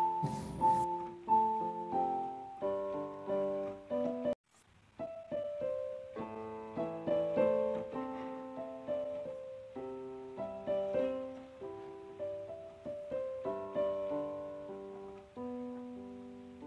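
Background piano music, a gentle melody of single notes and chords, breaking off for a moment about four seconds in.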